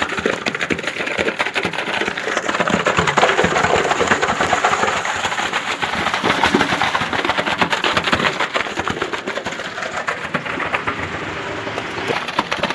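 Ready-mix concrete with gravel sliding down a long chute from a concrete mixer truck and falling into a deep drilled pier shaft: a steady gritty rush full of small clicks, with the truck's engine running underneath.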